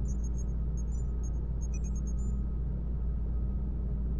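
Science-fiction space-dock control-room ambience: a steady low hum with a faint steady high tone over it, and a quick scatter of short high electronic beeps in the first two seconds or so.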